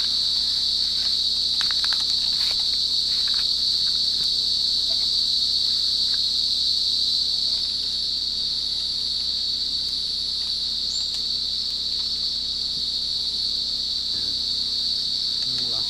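Steady, high-pitched chorus of night insects such as crickets, trilling without a break. A few faint clicks come about two to three seconds in.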